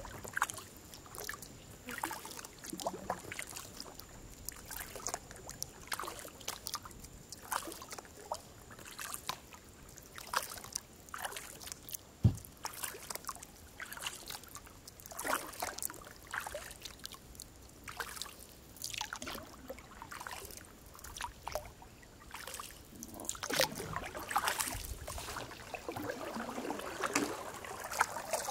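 Kayak paddle strokes in calm water: the blades dip and pull with irregular small splashes, and water drips and trickles off them. A single sharp knock comes about twelve seconds in.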